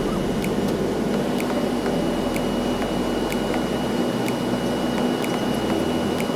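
Cabin noise of the Shanghai Maglev (a Transrapid magnetic-levitation train) cruising at about 300 km/h: a steady rushing noise with a low hum and a faint high whine, and faint ticks about twice a second.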